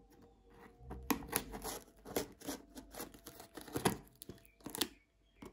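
Cardboard shipping box being torn open by hand, its tape and cardboard ripping in a run of short rasps that start about a second in.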